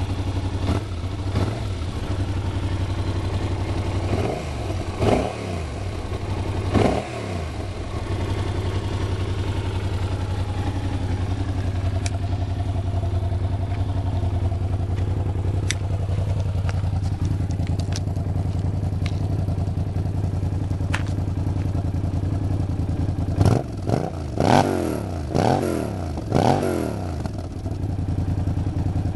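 Yamaha TDM 900's parallel-twin engine idling steadily, with the throttle blipped in two clusters: three quick revs about four to seven seconds in, and four more near the end.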